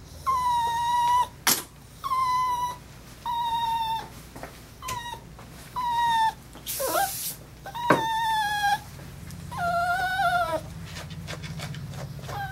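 Maltese dog whining: a string of about eight short, high-pitched whines, each under a second long. There is a brief hiss about seven seconds in.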